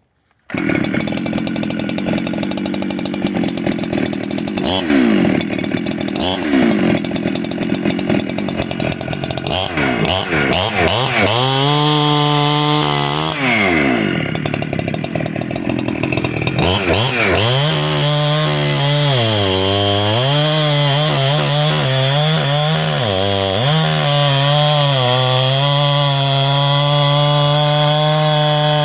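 Husqvarna 372 two-stroke chainsaw with an aftermarket modded muffler, running loud. It fires up about half a second in and runs rough and uneven at first. Through the middle it is revved down and back up several times, then holds a steady pitch near the end.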